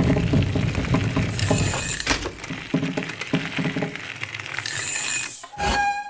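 Designed cartoon sound effects for an old bicycle: the chain and freewheel ratchet and click continuously, with metal rattling. Two brighter bursts of metallic clatter come about a second and a half in and again near five seconds. Near the end there is a thump followed by a short ringing tone.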